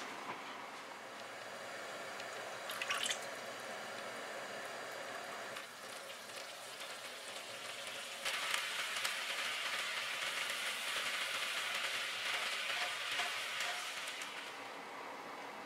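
Dark sauce bubbling and sizzling as it reduces in a nonstick frying pan, starting a little past halfway and lasting about six seconds before fading out. A short clatter about three seconds in.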